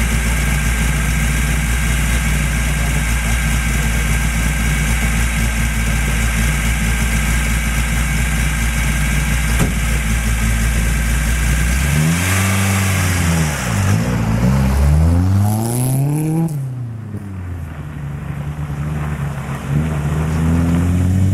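A rally Lada's four-cylinder engine idles steadily. About twelve seconds in it revs hard and pulls away, pitch climbing, dropping at a gear change, then climbing again as it fades into the distance. Near the end a second rally car's engine, a Honda Civic's, rises in pitch.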